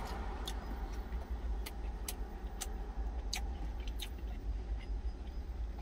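Truck engine idling, a steady low rumble, left running after high-speed driving so the hot engine can cool down rather than being shut off. A scatter of small sharp clicks sounds over it at irregular intervals.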